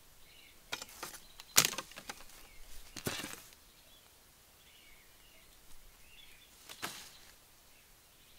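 Footsteps crunching and snapping in dry bamboo leaf litter and twigs, in a few short clusters; the sharpest snap comes about a second and a half in, and a last crunch comes near the end. Faint birds chirp behind.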